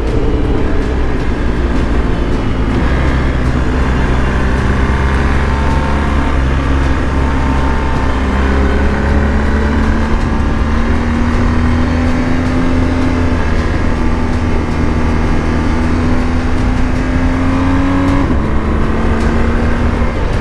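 BMW R 1250 GS Adventure's boxer-twin engine running under way, its note climbing slowly for most of the time, then dropping once near the end, over a heavy low rumble.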